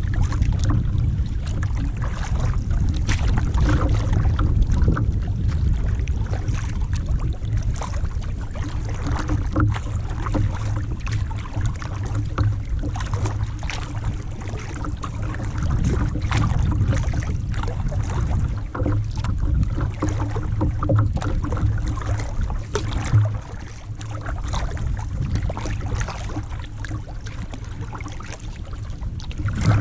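Kayak paddling on a lake: irregular small splashes and drips of water from the paddle strokes over a steady low rumble.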